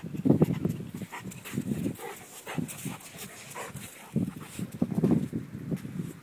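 A German Shepherd sniffing and breathing close to the microphone in irregular puffs.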